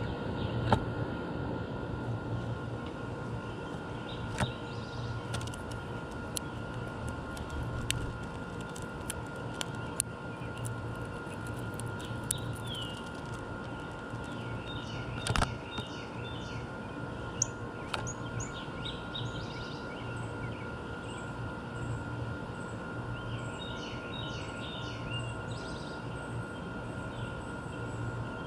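Small songbirds chirping in short clusters several times, over a steady background hum that carries a constant tone; a few sharp clicks stand out.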